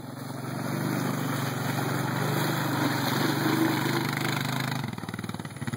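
ATV (quad bike) engine pulling through mud, growing louder over the first second as the quad nears. It then runs steadily under load and eases off about five seconds in.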